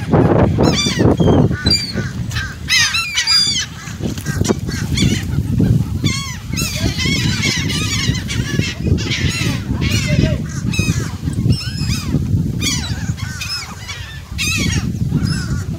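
A crowd of birds calling over one another while being fed, many short repeated calls overlapping throughout, over a steady low rumble.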